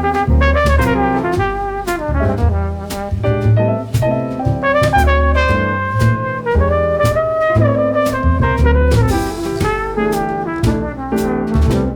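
Background music: jazz with brass instruments playing a melody over a steady drum beat.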